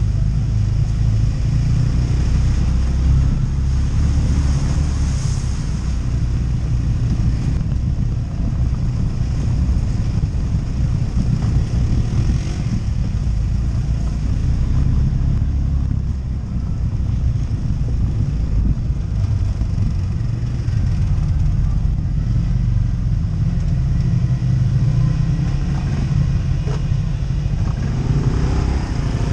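ATV engine running steadily while riding along a trail, with a deep, constant drone and a brief climb in pitch near the end.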